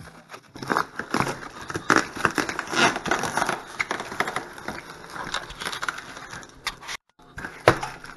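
A long cardboard shipping box being pulled open, its flaps scraping and bending while plastic wrap crinkles: irregular crackling and scraping with sharp clicks. The sound cuts out briefly about seven seconds in.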